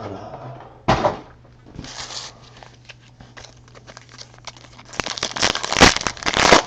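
Foil wrappers of trading card packs being torn open and crinkled in short bursts, with a longer, louder stretch of crinkling near the end.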